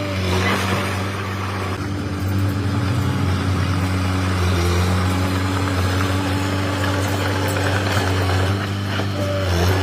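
Diesel engine of a Komatsu D21P mini crawler bulldozer running steadily, its pitch dipping briefly twice.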